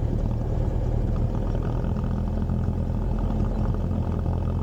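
Cessna 172's piston engine and propeller running at a steady low, even speed, a constant drone with no change in pitch.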